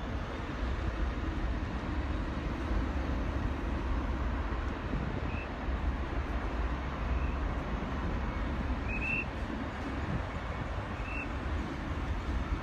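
Korean Air Boeing 747's four jet engines at takeoff power during the takeoff roll, heard from a distance as a steady low rumble and hiss. Faint short high chirps come every couple of seconds from about five seconds in.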